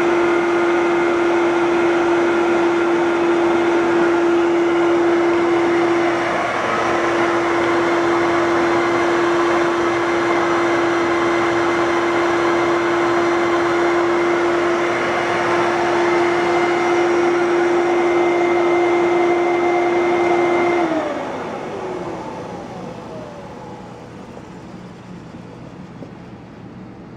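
Fantom Thunder 11-amp vacuum cleaner motor running at full speed with a steady whine, on its first start after 23 years unused in the box, and sounding healthy. About three-quarters of the way through it is switched off and winds down, its pitch falling and fading.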